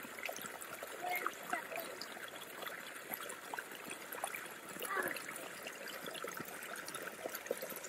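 Shallow creek trickling steadily, with a small waterfall spilling over a log, and light splashes and dribbles from hands in the water.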